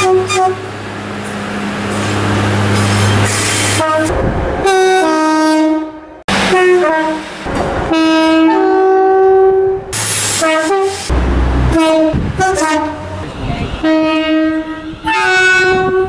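A run of British multiple-unit train horns, sounded in alternating high and low two-tone notes, some held for a second or more, broken by abrupt cuts between clips. A diesel railcar's engine runs low under the first few seconds.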